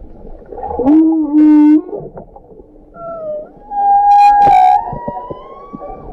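Humpback whale song heard underwater: a low moan held for about a second, then a call that rises, levels off and slowly climbs again toward the end, with short high squeals in between.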